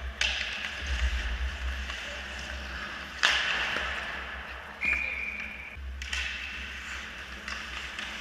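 Ice hockey play heard from behind the goal: skate blades scraping on the ice, with sharp clacks of sticks and puck echoing in the rink. The loudest is a hard crack about three seconds in. A short, steady high tone sounds near five seconds in.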